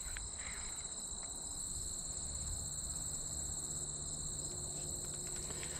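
Steady, high-pitched trilling of an insect chorus, continuous and unbroken.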